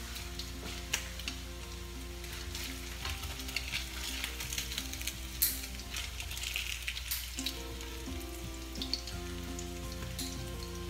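Patties sizzling in hot oil in a frying pan, a steady crackling hiss with frequent sharp spits and pops as they are turned in the pan.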